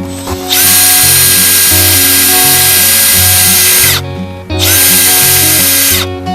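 Electric drill running in two bursts, a longer one of about three and a half seconds and then a short one, its motor whine rising as it starts and falling away as it stops each time; guitar background music plays underneath.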